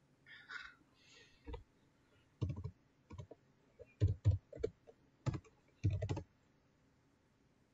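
Computer keyboard keys being typed in short irregular bursts of clicks, stopping about six seconds in.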